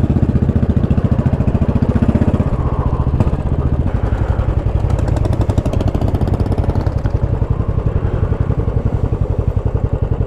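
Royal Enfield Classic's air-cooled single-cylinder engine running at low revs with an even thumping beat, as the bike is ridden slowly.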